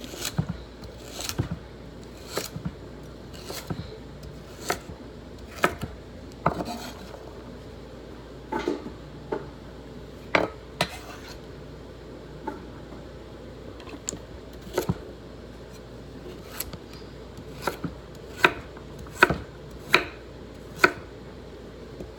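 Knife chopping vegetables on a cutting board: single slow strokes about once a second, the last few louder.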